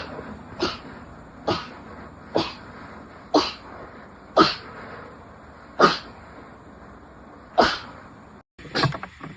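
A fit of short, sharp sneezes, about one a second at first and spacing out over the run. Near the end there is an abrupt cut, then two quick sneezes.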